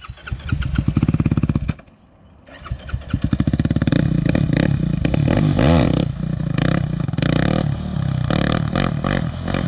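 Single-cylinder four-stroke engine of a Yamaha YFZ450R sport quad running through an aftermarket exhaust. It drops out briefly about two seconds in, then picks up again and runs on with the revs rising and falling.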